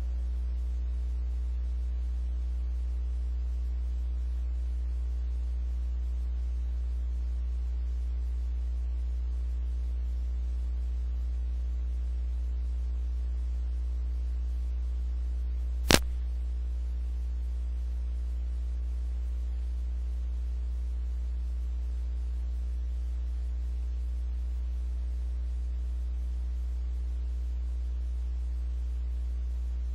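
Steady low electrical mains hum with a faint buzz of overtones above it, and a single sharp click about halfway through.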